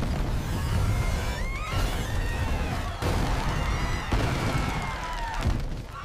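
Cartoon sound effects of a big toy-block wall collapsing: a dense low rumble with crashing debris, over music, easing off near the end.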